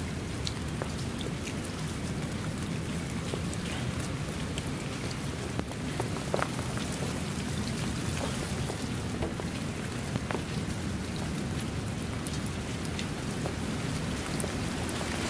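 Steady rain falling on a shallow rivulet of running water and wet ground, with many individual drop impacts heard close up.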